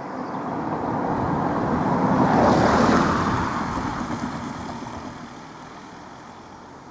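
An Audi hatchback driving past on the road. Its tyre and engine noise rises to a peak between two and three seconds in, then fades as it moves away.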